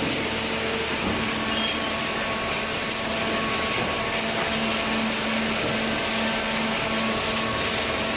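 Automatic cardboard baler and its inclined feed conveyor running: a steady mechanical hum with a constant droning tone and an even, noisy wash of machinery.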